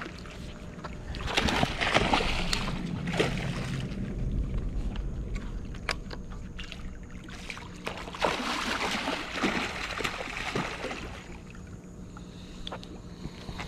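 Hooked snook splashing and thrashing at the water's surface while being played on the line. It comes in two spells, one about a second in and another about eight seconds in, with water sloshing between them.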